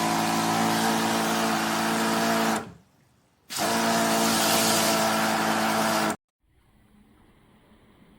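Bang4buck 12-volt portable electric pressure washer pump running in two bursts, a motor hum under a steady spray hiss. The first burst stops a little over two seconds in; the second starts about a second later and cuts off suddenly about six seconds in.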